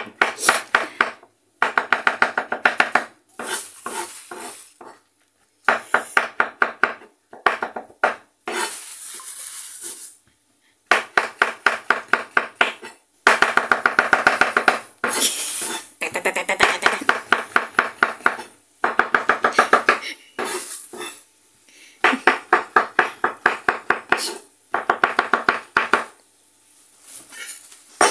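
Kitchen knife slicing white mushrooms on a wooden cutting board: runs of quick, even knife taps on the board, several a second, broken by short pauses.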